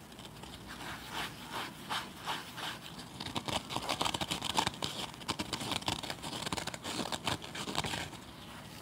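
Green abrasive scouring pad on a scrub sponge being rubbed and squeezed by hand, giving crunchy, scratchy rasps. The strokes come spaced at first, then turn denser and louder from about three seconds in and stop shortly before the end.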